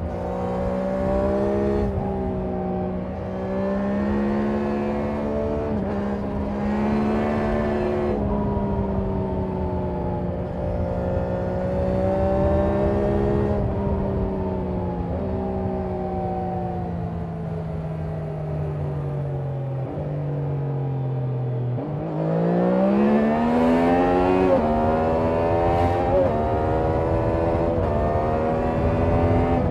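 Triumph Daytona 660's three-cylinder engine and exhaust under way. Its note holds fairly steady, then sinks gradually as the bike slows. About two-thirds of the way through, it climbs sharply under hard acceleration, with a couple of quick gear changes.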